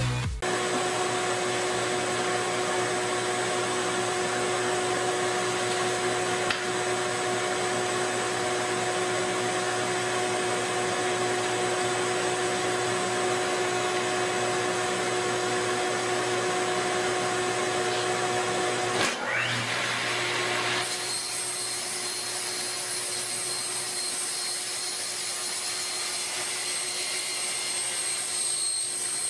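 An electric power tool's motor running steadily with a whine. About two-thirds of the way through it stops briefly and spins back up, then runs on with a changed, hissier sound.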